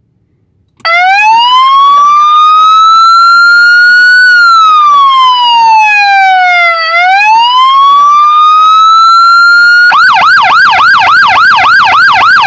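Electronic siren built into an LED Ibérica Tornado X rotating beacon, sounding through its own speaker. It starts about a second in with a slow wail that rises, falls and rises again over about nine seconds, then switches near the end to a fast yelp of about four sweeps a second.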